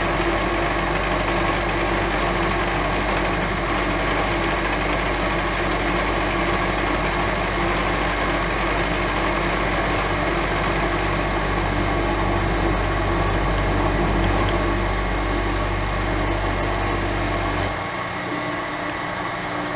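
Lagun milling machine running steadily, its end mill in a bracket clamped in the vise, with a steady hum and several steady whining tones. Near the end the low hum cuts off suddenly and the sound drops to a fainter steady hum.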